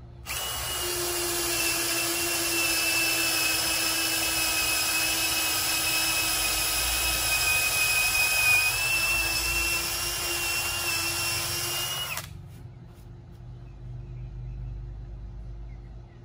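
Cordless drill boring through a thick wooden bunker board with a long 5/8-inch wood drill bit, its motor whine holding steady for about twelve seconds and then stopping suddenly.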